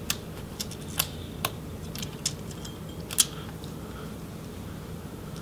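A handful of small, sharp plastic clicks and taps as a ribbon-cable connector is worked loose and unplugged from a laptop motherboard, the loudest a little after three seconds in, over a low steady hum.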